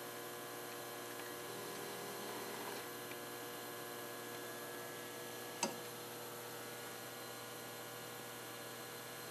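Steady low electrical hum made of several fixed tones, with faint hiss. A single short click about five and a half seconds in.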